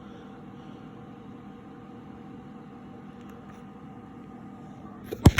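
Steady background hum with a few faint steady tones in it. Near the end, two sharp clicks.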